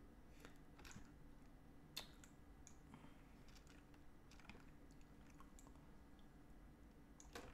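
Faint, irregular clicks of a computer mouse and keyboard, about one every second, the sharpest one about two seconds in, over a faint low steady hum.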